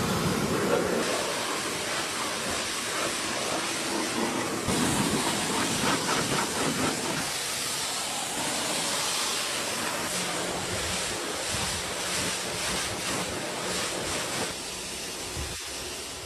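Pressure washer spraying water in a steady hiss, with abrupt changes in tone where separate takes are cut together.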